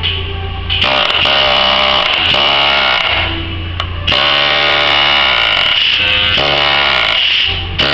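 Powered nail remover tool hammering a nail out of a wooden pallet board. It runs twice: a loud buzzing run of about two seconds, a pause of about a second, then a second run of about three seconds, its pitch dipping and recovering as it works.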